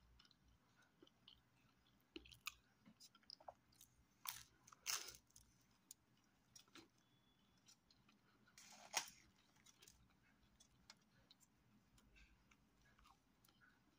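Faint chewing of pizza, with scattered small clicks and two brief louder crackles about four and nine seconds in.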